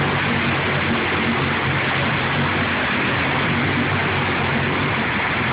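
Polaris 850 XP ATV's twin-cylinder engine held at steady high throttle while it is stuck in a mud hole, its wheels spinning and throwing mud. A loud steady hiss sits over a low engine note.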